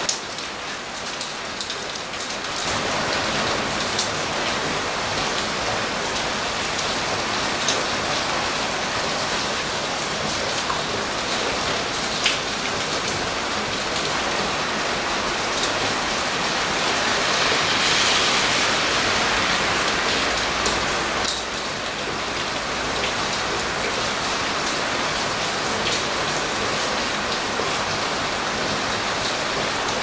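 Heavy typhoon rain pouring steadily onto pavement, roofs and cars. It grows louder about two and a half seconds in and heavier again for a few seconds in the middle, with occasional sharp ticks.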